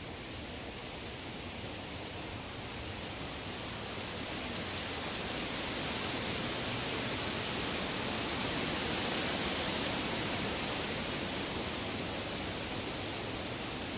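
Woodland ambience: a steady rushing hiss, like wind through leaves, that swells to its loudest a little past the middle and then eases slightly.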